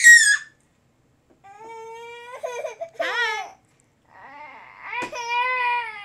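Baby fussing with whiny, drawn-out cries: a shrill squeal cut off at the start, then two long wailing cries of about two seconds each, the first ending in a falling wail about three seconds in.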